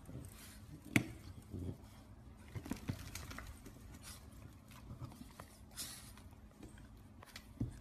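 French bulldog puppy moving about on a hardwood floor while tossing its head: scattered light taps and rustles, with one sharper knock about a second in.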